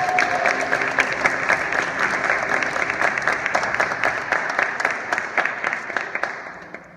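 Audience applauding: dense, steady clapping from many hands that dies away over the last second.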